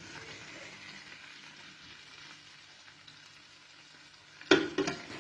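Omelette frying in a pan with a steady sizzle, and two sharp knocks near the end.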